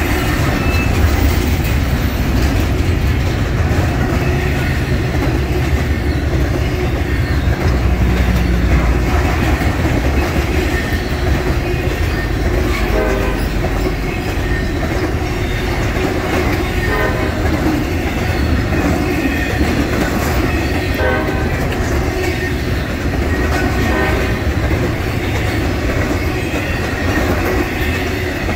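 Intermodal freight train cars rolling past close by: a steady low rumble of steel wheels on rail, with clusters of clicks every few seconds as the wheel sets cross rail joints.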